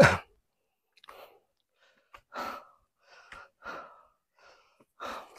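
A hiker's heavy breathing while climbing: a loud puff right at the start, then short breaths about every second and a half.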